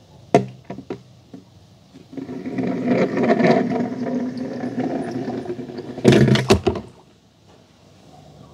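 Die-cast Mater toy tow truck rolled along a smooth plastic surface, its small wheels rattling for several seconds, with a few sharp knocks about six seconds in and light clicks as it is set down near the start.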